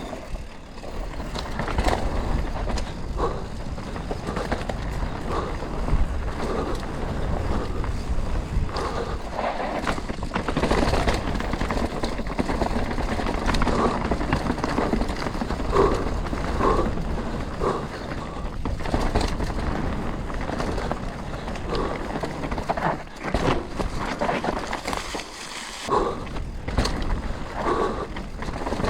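Canyon Spectral 125 CF7 full-suspension mountain bike riding a trail: knobby tyres rolling over dirt and rocks in a continuous noisy rumble, with frequent short knocks and rattles from the bike over rough ground.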